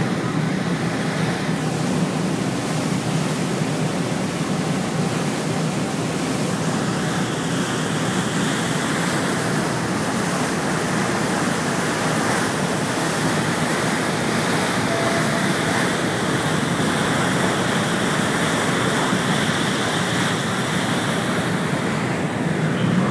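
Steady rushing of wind and water on the open deck of a moving ferry, with a faint low hum underneath.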